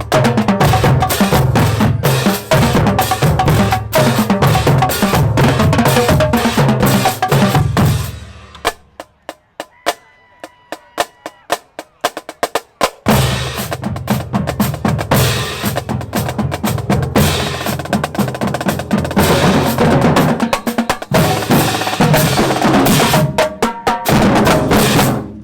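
Marching band drumline of snare drums, tenor drums and pitched bass drums playing a loud, busy cadence. About eight seconds in it drops to sparse, quiet stick taps for roughly four seconds, then comes back in full and cuts off sharply at the end.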